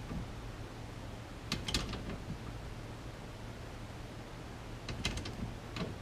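A ratchet wrench clicking in short bunches, three times, as it tightens the steering wheel's center nut on the steering shaft.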